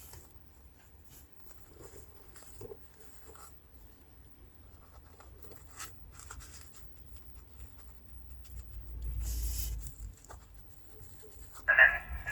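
Faint handling sounds of small work on a tweeter: light clicks and rubbing of a rag and small parts, with a louder rustle about nine seconds in and a brief, sharper sound near the end.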